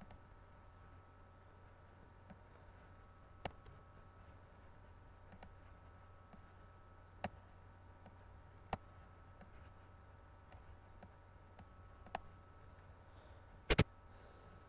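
Computer mouse buttons clicking now and then as desktop icons are selected and dragged, with a louder double click near the end, over a faint steady hum.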